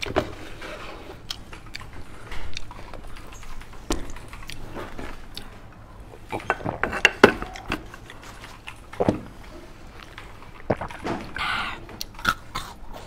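Scattered clicks and knocks of dishes and packaged food being handled on a table, with the loudest cluster about halfway through and a short rustle or crunch near the end.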